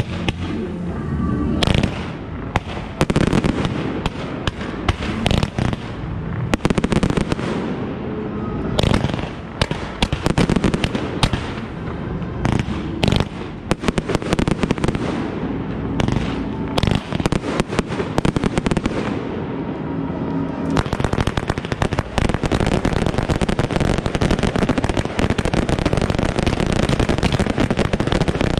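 Ground-fired fireworks batteries going off: a long run of rapid shots and bangs. About two-thirds of the way in it turns into a dense, steady crackling and hissing as several fountains and crackling batteries burn at once.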